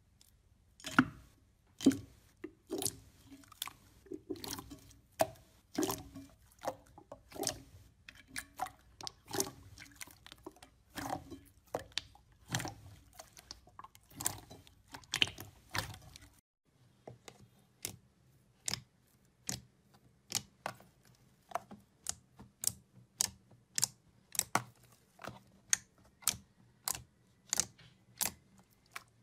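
Hands squeezing and pressing slime, making wet squishing sounds with crackling and popping clicks. About halfway through there is a cut to a different slime being pressed, and from then on the sound is crisp, evenly spaced clicking pops, about two a second.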